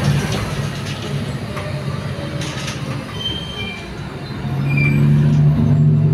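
Interior of a Mercedes-Benz Conecto O345G articulated bus under way: the diesel engine drones low, easing off for a few seconds and then growing louder again from about four and a half seconds in as it pulls, over steady road noise. A few brief high squeaks come from the body in the middle.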